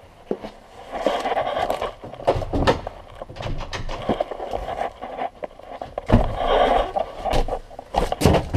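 Irregular scraping and rustling in bursts of about a second, with sharp knocks between them, from the camera being moved about and rubbed against.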